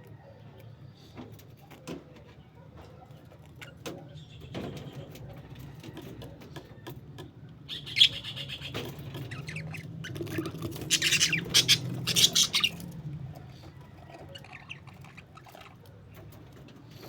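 Parakeets chirping and squawking, with small clicks and rustles between calls; a sharp call about eight seconds in and a burst of loud calls a little later are the loudest parts.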